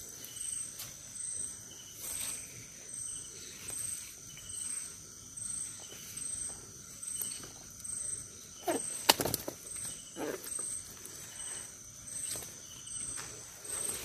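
Crickets chirping in a steady, evenly spaced rhythm. Around the middle come a few sharp rustles and knocks as fish are handled in a burlap sack.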